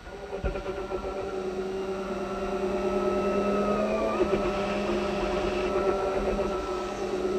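Electric power tool spinning a foam polishing pad against a plastic boat portlight, a steady motor whine heard from inside the cabin. Its pitch sags briefly about four seconds in as the pad is pressed harder against the window.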